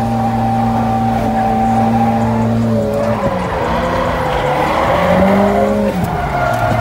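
A drift car's engine held at steady high revs, then dipping and wavering in pitch through the middle as tyres squeal, before settling back to a steady note.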